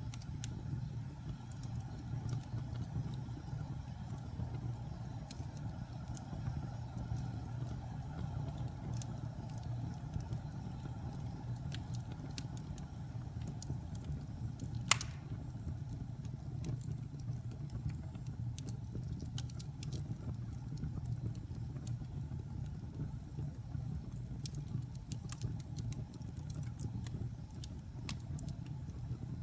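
Wood fire burning in a fireplace: a steady low rumble with frequent small crackles, and one loud sharp pop about halfway through.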